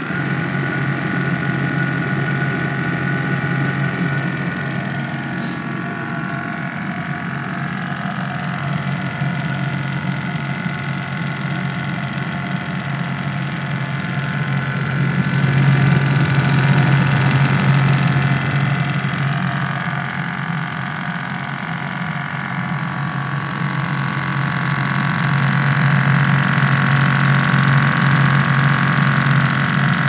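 Proheat 30,000 BTU diesel-fired heater running with its burner lit: a steady hum from the combustion blower and burner with a higher whine over it, swelling in loudness about halfway through and again near the end.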